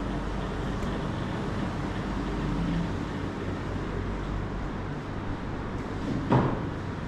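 Steady room hum and noise, with one sharp knock about six seconds in.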